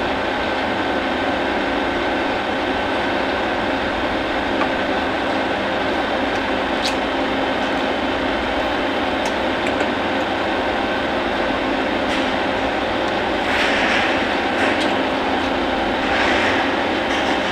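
A machine runs with a steady drone and a faint hum during refrigerator service work with gauges connected. Near the end come two short hisses as a charging-hose fitting is held in a rag, with a few small metallic clicks of fittings being handled.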